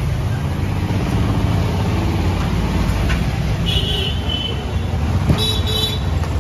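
Street traffic: a steady low rumble with vehicle horns tooting, once about four seconds in and in two quick toots about five and a half seconds in.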